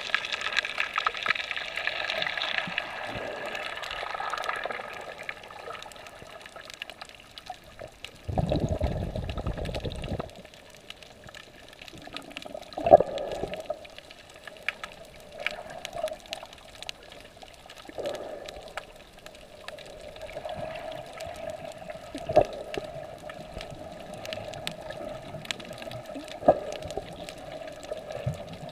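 Water heard through a camera held underwater: muffled sloshing and gurgling. About eight seconds in a louder low rush lasts roughly two seconds, and a few sharp knocks come later.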